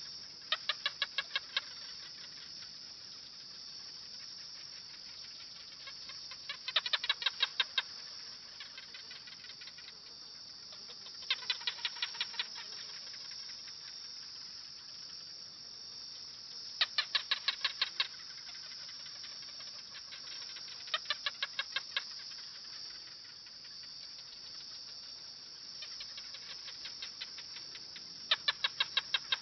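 A bird calling in short rapid bursts of about eight quick notes each, repeated every four to five seconds, over a steady high-pitched hiss.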